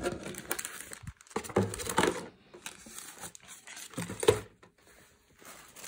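Clear plastic packaging bags crinkling and rustling in three short bouts as merchandise is handled and packed back into a cardboard box, with a sharp knock in the last bout that is the loudest sound.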